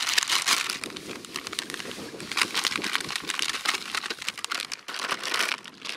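Plastic groundbait bag crinkling and rustling as it is handled and worked open, a dense crackle that swells in several louder spells.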